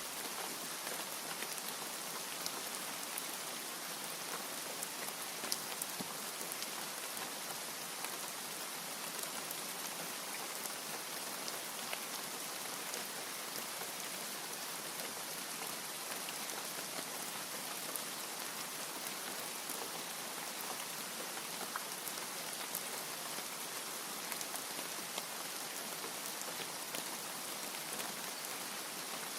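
Steady rain falling: an even hiss dotted with many small drop ticks, with no thunder.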